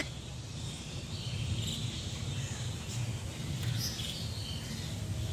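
Outdoor background ambience: a steady low rumble with faint, scattered high chirps.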